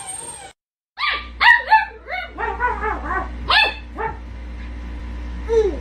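Husky puppy barking and yipping: a quick run of about a dozen short calls, each falling in pitch, over about three seconds, then one more yelp near the end. A steady low hum runs underneath.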